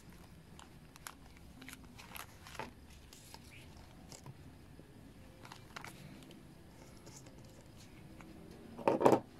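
Faint crinkling of a clear plastic bag and light clicks as thin paper and rubber carburetor gaskets and diaphragms are slid out and laid down, with a louder rustle near the end.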